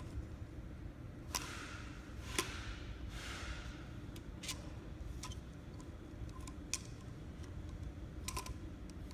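Scattered sharp clicks and two short hissing swishes over a steady low hum, from plastic parts being handled in a workshop.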